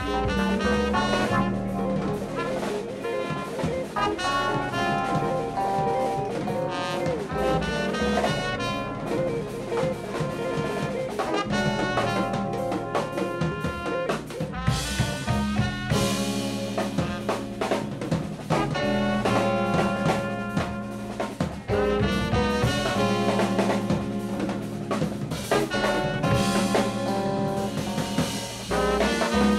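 Live jazz-funk band playing: trumpet leading over a drum kit, electric keyboard and a steady bass line.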